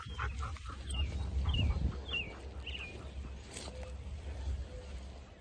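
Wind rumbling on the microphone, with a songbird singing a run of short falling chirps, about two a second, through the first few seconds.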